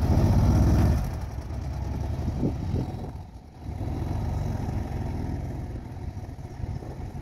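Volkswagen Kombi van's engine running as the van pulls away, loudest in the first second, dipping briefly about three and a half seconds in, then picking up and slowly fading as it drives off.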